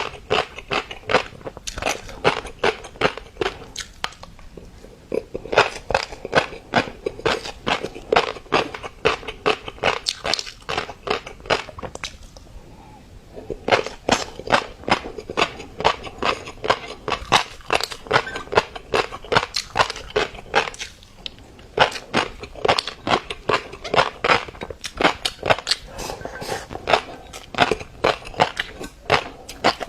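Close-miked mixed-colour fish roe crackling and popping in rapid, dense clicks, with short pauses about five, thirteen and twenty-one seconds in.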